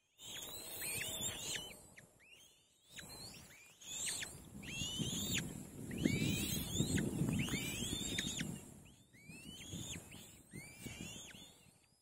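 Black-winged kites at the nest giving a run of high, thin screeching calls, each arching up and then dropping sharply, about two a second, over a low rumble.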